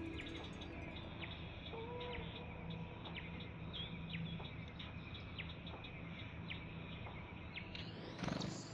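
Backyard birds chirping, a run of short falling chirps coming two or three a second over a steady low background. Near the end a rising sweep ends in a short loud sound.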